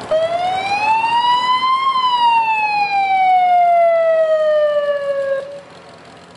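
Police car siren giving a single wail: the pitch rises for about two seconds, then falls slowly before cutting off about five and a half seconds in.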